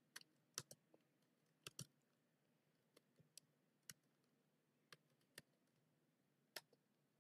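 Computer keyboard being typed on: about a dozen single keystroke clicks at an uneven, unhurried pace, with near silence between them.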